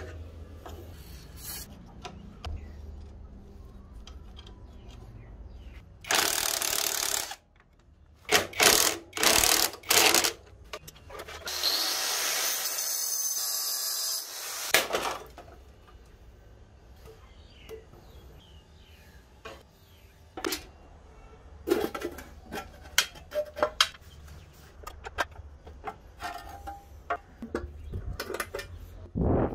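Workshop tool work: a loud burst of a power tool about six seconds in, lasting about a second and a half, then several short bursts, then a steadier run of about three seconds. Scattered clicks and knocks of tools being handled fill the rest.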